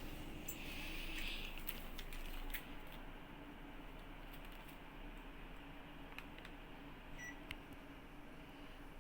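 Panasonic mini-split air conditioner: a faint steady hum, a few light clicks, and one short beep about seven seconds in.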